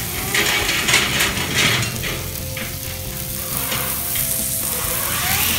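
Sauce-glazed prawn and squid skewers sizzling on a hot metal griddle plate, the sizzle flaring in louder bursts over the first two seconds and then settling to a steady hiss.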